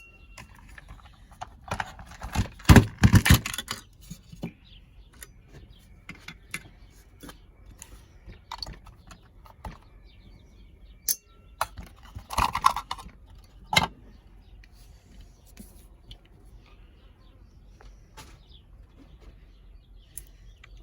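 Hands unscrewing and opening a cordless impact wrench's plastic battery pack: scattered small clicks, taps and rattles of screws and casing parts, with a few louder handling noises about two to three seconds in and again around twelve to fourteen seconds.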